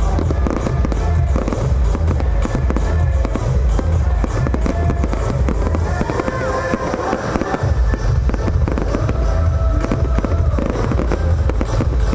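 Aerial fireworks bursting and crackling in quick succession over loud music with a pulsing bass beat.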